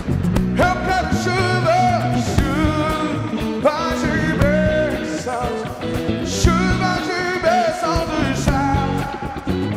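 Live Christian worship band playing, with a sung melody carried over the full band accompaniment.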